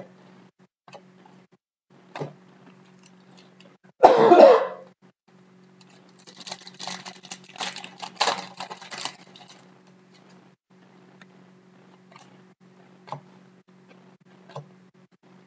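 A single cough about four seconds in, then a foil hockey card pack crinkling and tearing open for about three seconds, with light clicks of cards being handled.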